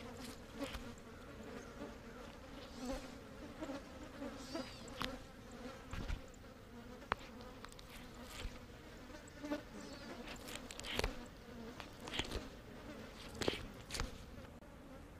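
Flies buzzing steadily close over a carcass, mixed with irregular sharp clicks and rasping tears as a turkey vulture pecks and pulls at the carcass.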